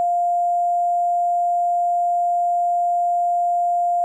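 A steady electronic bleep at one unchanging pitch, laid over the 911 call recording to blank out the caller's spoken personal details.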